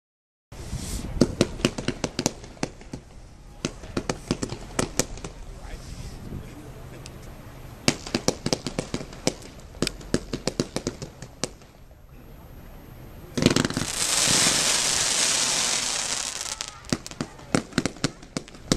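Lesli Turbo Steak 70-shot firework battery firing: dense runs of sharp crackling pops, easing off in the middle. About thirteen seconds in comes a loud rushing hiss lasting about three seconds, and the crackling picks up again near the end.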